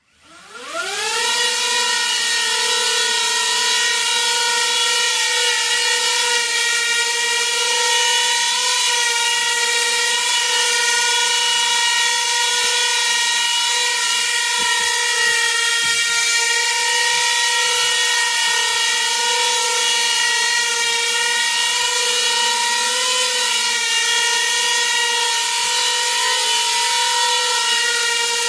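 A small coaxial copter's rotors spinning up from rest with a rising whine over the first second or so, then running at a steady buzzing whine as it flies, the pitch wavering slightly now and then.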